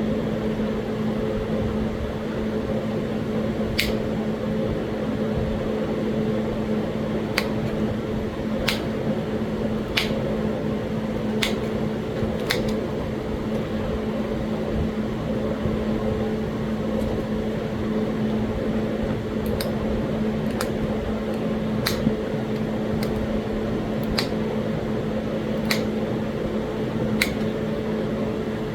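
Small flakes snapping off a Talahata quartzite point as it is worked by hand: about a dozen sharp, high clicks at irregular intervals. Under them runs a steady electric hum from a fan or air conditioner.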